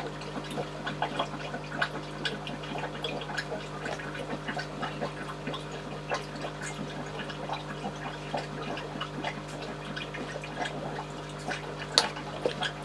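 Aquarium water bubbling and trickling as air bubbles rise through the tanks, with many small irregular plinks over a steady low hum; one sharp click near the end.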